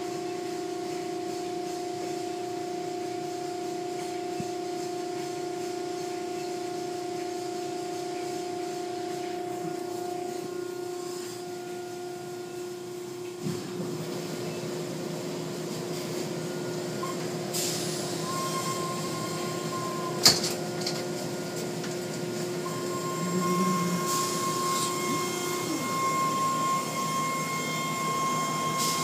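Automatic car wash machinery running: electric motors hum steadily under the hiss of spinning cloth brushes and water spray. The motor note changes about halfway through, and there is one sharp knock about two-thirds of the way in.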